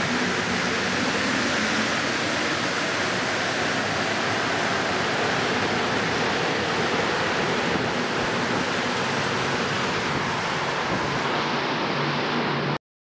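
Rubber-tyred Montreal Metro train pulling out of the station and running past, a steady rushing noise with some low hum. It cuts off suddenly near the end.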